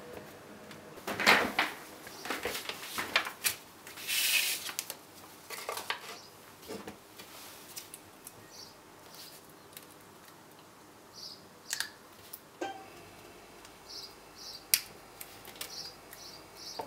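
Hands handling a small white plastic Xiaomi Yi action camera over a wooden desk: scattered clicks, taps and rustles, busiest in the first few seconds. Near the end a run of short, faint high chirps comes in between the clicks.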